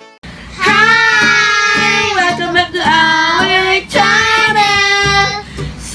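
Music: a song with a high singing voice holding long notes over instrumental accompaniment.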